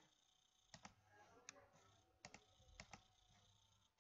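Faint, irregular clicks at a computer, about seven in all, some in quick pairs, over a quiet room background.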